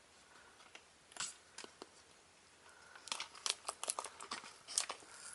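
Plastic packaging crinkling and crackling in the hands as the tape on it is picked at. A few crackles come about a second in, then a dense, irregular run of sharp crackles from about three seconds on.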